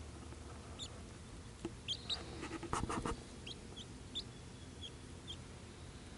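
Six-week-old chicks peeping: scattered short, high chirps, a few seconds apart to under a second apart, with a brief burst of clicky rustling about three seconds in.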